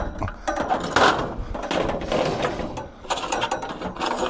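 Scrap metal clattering and scraping as a bent metal swing-seat frame is loaded onto the back of a truck, with a loud knock about a second in.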